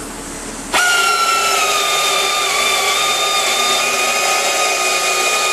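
A handheld power tool starts up about a second in and runs steadily with a high whine, its pitch settling slightly lower soon after starting.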